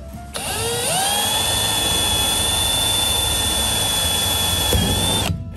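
Milwaukee M12 cordless drill boring a hole in the door frame: the motor spins up with a rising whine, runs steadily for about four seconds, then stops abruptly near the end.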